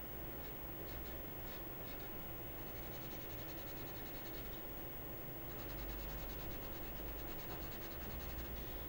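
Pencil scratching across drawing paper in short hatching strokes as shadows are sketched in, the strokes coming faster and closer together from about halfway through.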